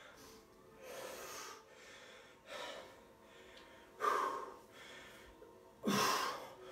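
A man breathing hard with effort during a set of kettlebell curls: four forceful breaths about one and a half seconds apart, the last two the loudest.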